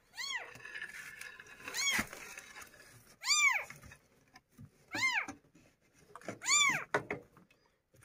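Young kittens mewing, five high calls that each rise and then fall in pitch, about one every one and a half seconds. They are crying after being left by their mother. A sharp knock comes about two seconds in, with light rustling between the calls.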